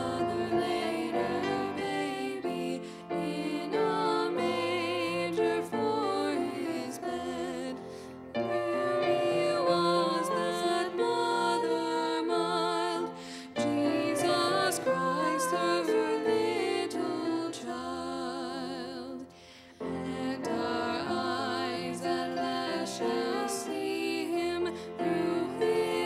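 Two women singing together with grand piano accompaniment, their held notes wavering with vibrato; the music drops away briefly about two-thirds of the way through before going on.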